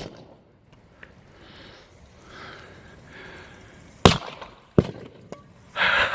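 Aerosol cans bursting in a bonfire. There is a sharp bang at the very start, then a loud bang about four seconds in and two smaller pops. Near the end comes a rapid run of crackling bangs.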